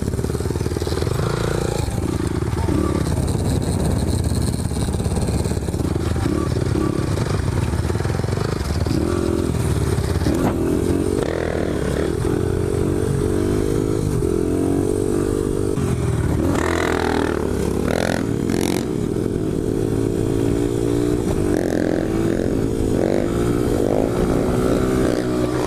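2001 Honda XR100R's single-cylinder four-stroke engine revving hard while ridden in a wheelie, its pitch rising and falling repeatedly with the throttle.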